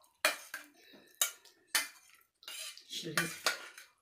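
Metal spoon clinking and scraping against a stainless steel saucepan as broth is spooned out, a series of sharp clinks with short gaps between them.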